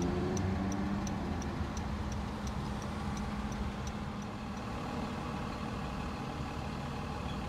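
Car engine running steadily, heard from inside the car, with a turn-signal indicator ticking about three times a second. The ticking stops a little over four and a half seconds in.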